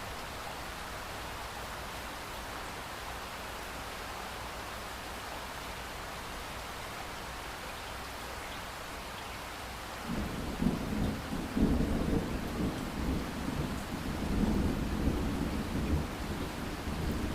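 Steady rain falling. About ten seconds in, a louder, rolling low rumble of thunder begins and goes on over the rain.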